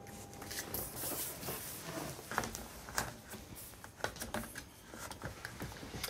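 Quiet, irregular clicks, knocks and rustling of hands working plastic plumbing hoses and fittings as the dishwasher's supply and waste hoses are connected.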